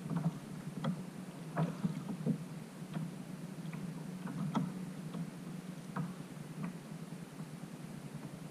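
Sit-on-top fishing kayak under way: a steady low hum with scattered light knocks and slaps carried through the hull.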